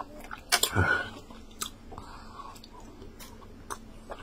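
Close-miked wet eating sounds of fufu and egusi soup being chewed: wet mouth clicks and smacks, with one louder, longer wet sound falling in pitch about half a second in.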